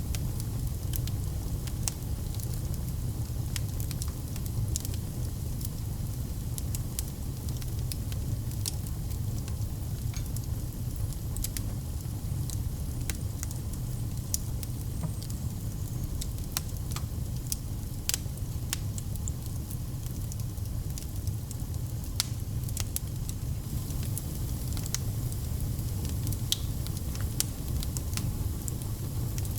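Wood fire burning in a fireplace: a steady low rumble with frequent, irregular sharp crackles and pops.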